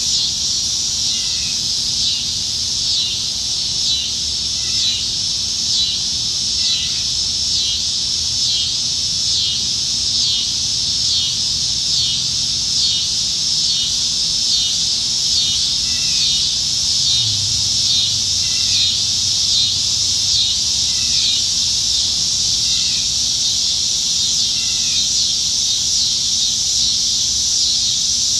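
A chorus of cicadas singing in the trees: a loud, high, continuous buzz that swells and fades in a steady, even rhythm.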